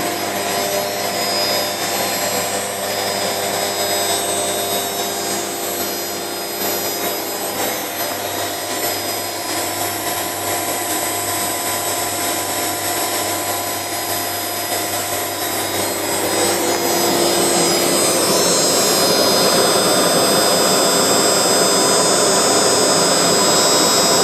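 A CNC router's high-speed spindle cutting oak, with a dust extractor running steadily alongside. The cutting noise gets louder and rougher about two-thirds of the way through.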